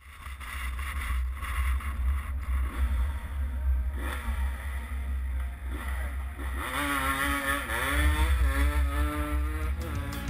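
Truck engine running as the truck drives a dirt trail, heard from a camera on its hood under a heavy steady low rumble; from about seven seconds in the engine note climbs and drops as it revs.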